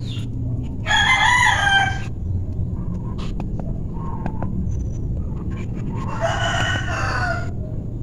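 A rooster crowing twice, each crow a little over a second long, one about a second in and another about six seconds in, over a steady low rumble.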